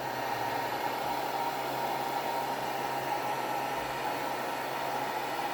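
Handheld blow dryer running steadily: a constant rush of air over a low motor hum, drying the Got2b holding spray on a wig's lace as it is pressed down at the hairline.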